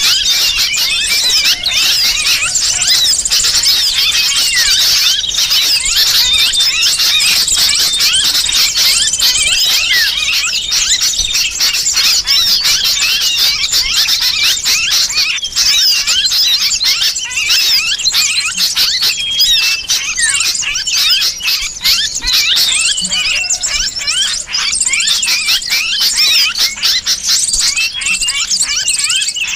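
Dense, unbroken chorus of many small birds chirping and twittering noisily, mixed with the squealing distress calls of a sooty-headed bulbul: a bird-lure recording made to draw wild birds in.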